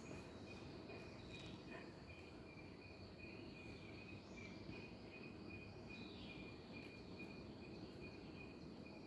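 Faint insect chirping, likely crickets: a steady high-pitched trill broken into short, even pulses, over a low background hiss.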